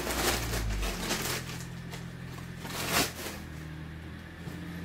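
A clear plastic packaging bag rustling and crinkling as a brush is pulled out of it, most in the first second, with one sharper rustle about three seconds in.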